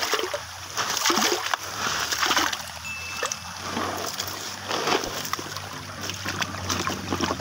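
Wet, gritty sand and gravel crunching and scraping as a hand digs a plastic toy out of it, then water splashing and sloshing as the toy is swished through shallow water to rinse it, near the end.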